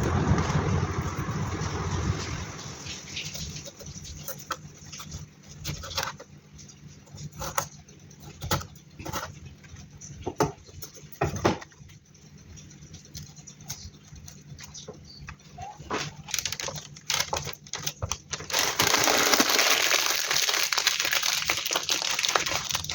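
Kitchen handling sounds: a noisy stretch for the first couple of seconds, then scattered sharp clicks and knocks. About eighteen seconds in, a loud, steady rushing noise starts and runs on.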